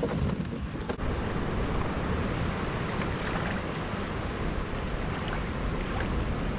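Steady rush of wind on the microphone mixed with open-ocean water noise around a kayak, with no distinct events.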